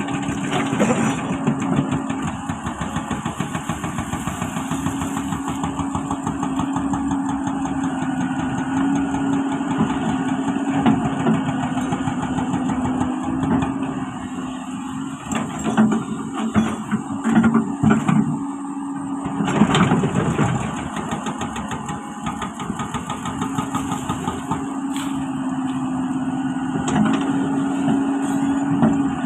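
Hydraulic excavator's diesel engine running steadily, with a few louder knocks and clanks in the middle.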